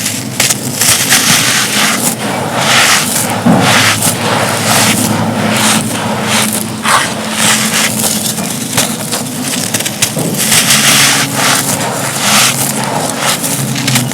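Soft, dusty, gritty moulded cups being crumbled by hand: a steady run of dense, irregular crunches and gritty scraping as the material breaks apart.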